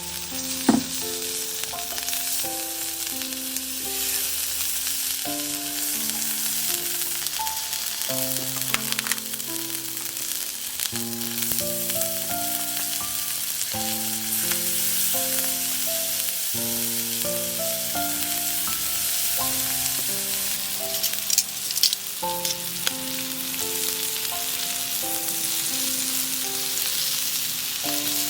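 Food sizzling on a charcoal shichirin grill, a steady frying hiss, under background music of a simple melody of held notes.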